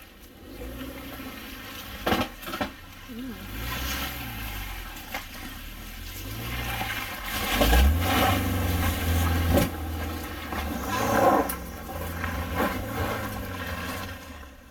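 An off-road vehicle's engine revving up and down under load, with tyres scrabbling on the trail and sharp knocks about two seconds in, and again near the eight- and ten-second marks, like rocks striking the tyres or underbody.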